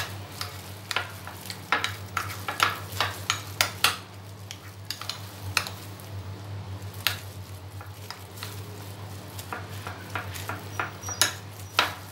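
A spoon stirring and mashing softened butter with chopped garlic, chilli flakes and coriander in a small glass bowl, with irregular clicks and scrapes of the spoon against the glass, several a second.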